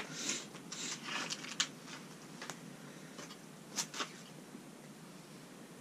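Rustling and a few light, sharp clicks of small fishing tackle and soft plastic lures being handled. The rustles come in the first two seconds, with clicks about a second and a half in and again around four seconds in.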